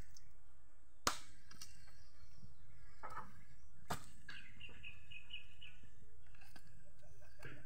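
A coconut husk being pried off an upright husking stake, with a sharp crack about a second in and a smaller one about four seconds in. A bird chirps a quick run of high notes midway.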